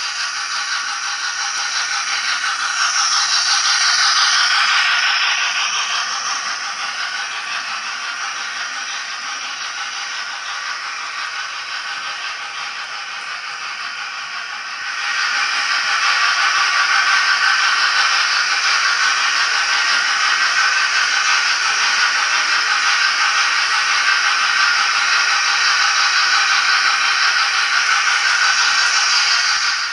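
Model steam locomotive (Hornby A4 Bittern) running with its LokSound DCC sound decoder playing steady steam hiss, with a rattle of wheels on model track. It swells briefly a few seconds in, then becomes markedly louder about halfway through and stays there.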